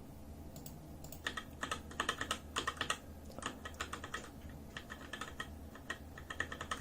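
Key presses on a Razer BlackWidow keyboard with Razer Orange tactile mechanical switches: irregular runs of keystrokes, thickest between about one and three seconds in, then sparser.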